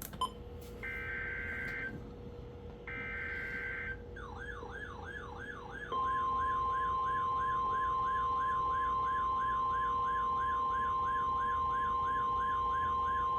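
EAS SAME header data bursts, two short buzzy bursts about a second long, from a NOAA Weather Radio tornado warning. They are followed from about four seconds in by a fast warbling siren-like alert tone sweeping up and down about three times a second. From about six seconds in the steady 1050 Hz weather radio warning alarm tone sounds over the warble.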